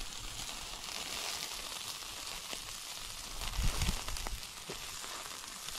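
Pork skewers sizzling over a charcoal grill, a steady hiss of fat and juices on the hot coals. A few low bumps come about three and a half seconds in.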